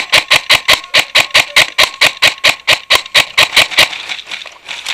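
Airsoft rifle firing a rapid string of shots, about five a second, then stopping about four seconds in.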